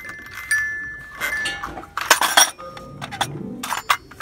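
A series of sharp clinks and knocks of hard objects against each other, several leaving a brief ringing tone, with the busiest cluster about two seconds in.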